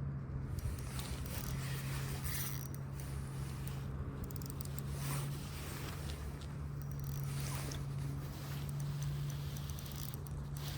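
A fishing reel and line being worked against a fish snagged in a brush pile, giving short scraping, zipper-like rasps at irregular intervals. A steady low hum runs underneath.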